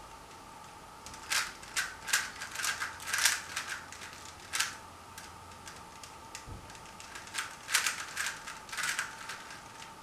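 A Rubik's cube being turned by hand: an irregular run of quick plastic clicks and clacks as the layers snap round. The clicks come in groups, with a lull a little past the middle.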